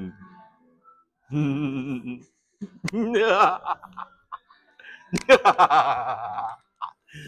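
A man's exaggerated, theatrical Joker-style laugh in three bursts, the last one the longest.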